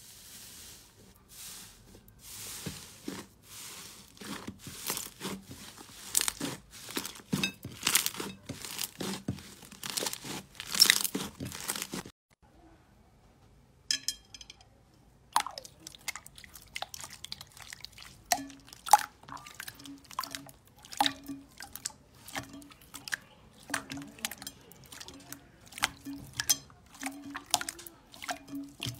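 Fingers pressing and kneading slime in a bowl, giving a dense run of sharp crackling pops. The crackling stops about twelve seconds in, then resumes as more spaced pops when hands press and stretch a clear slime.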